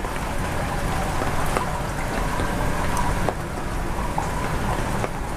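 Steady splashing and bubbling of water in a large aquarium, a rain-like patter with a few faint ticks.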